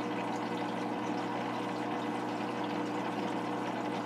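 Aquarium pump running: a steady hum with an even wash of moving water.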